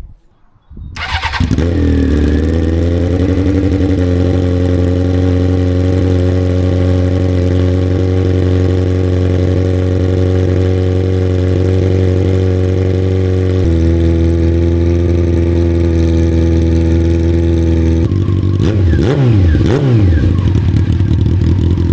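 Honda CBR sport bike engine cold-started with its exhaust removed, running on bare headers: it catches about a second in, climbs and settles to a steady fast idle, and is revved a few times near the end. The open-pipe sound is loud and raw, "insane".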